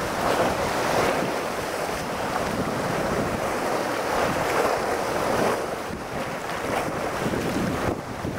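Small sea waves sloshing and splashing against a rocky shoreline close by, in uneven surges, with wind on the microphone.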